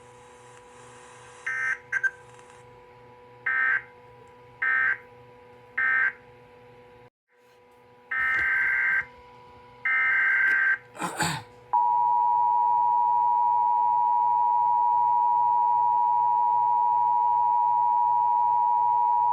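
Emergency Alert System data and alert tones: short SAME data-burst squawks, three of them about a second apart (the end-of-message code closing one alert), then after a brief dropout two longer data bursts (the header of the next alert). From about twelve seconds in comes the steady, loud two-tone EAS attention signal. A faint steady hum runs underneath.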